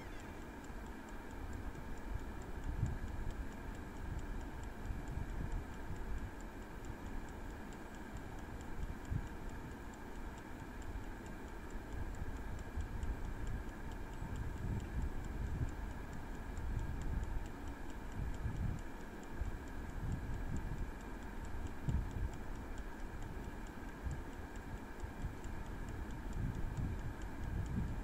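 Prego air fryer running: its wind-up mechanical timer ticking steadily over the steady hum of the fan, counting down the last minute of cooking. Gusty wind rumble on the microphone underneath.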